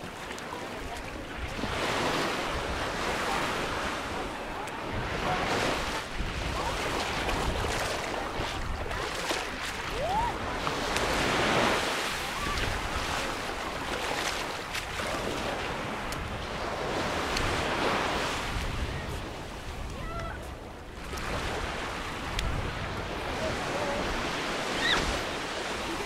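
Small sea waves breaking and washing up a sandy shore, the hiss of surf swelling and fading every few seconds.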